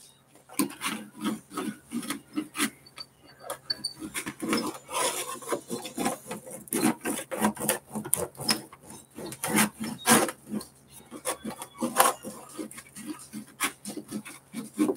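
Hands rubbing and handling a diamond painting canvas and its plastic cover sheet: an irregular run of short, scratchy rubbing strokes, a few a second.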